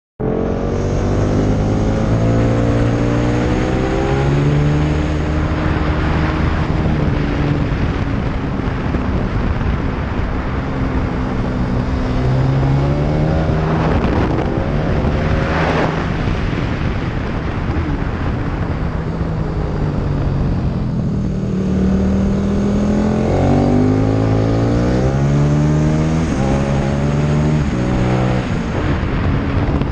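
Motorcycle engine at full race pace, its pitch climbing under hard acceleration and dropping again at each gear change, over steady wind rush on the onboard microphone.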